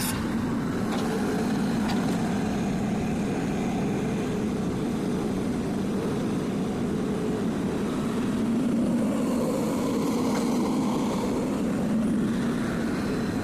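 Excavator's diesel engine running steadily, a constant drone.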